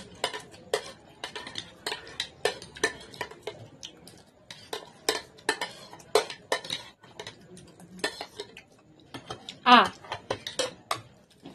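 Steel spoons and ladles clinking and scraping against food trays in quick, irregular clicks as noodles are scooped up and eaten. A short vocal exclamation about ten seconds in.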